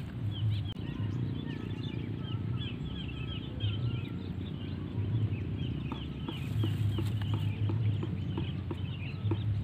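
Small birds chirping: a dense run of quick, short chirps throughout, over a low steady rumble.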